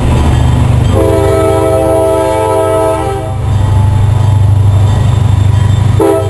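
Air horn of an approaching CSX diesel locomotive leading a slug set, sounding for the grade crossing: one long chord blast of about two seconds, then a second blast starting near the end. A steady low rumble of the locomotive's diesel runs underneath.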